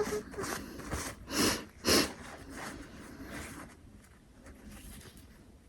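A person sniffing through the nose while a twisted paper string (koyori) tickles inside a nostril to set off a sneeze. There are a few short soft sniffs, the two clearest about one and a half and two seconds in.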